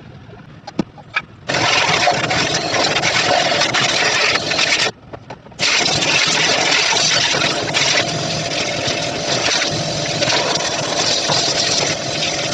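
A loud motor-driven machine running with a hissing rush, starting abruptly, cutting out briefly about a third of the way in, then starting again and running steadily.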